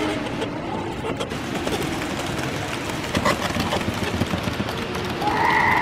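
Model trains running on a museum layout: a dense, rapid clatter of small wheels and motors over the track. A short, steady two-pitch tone sounds near the end.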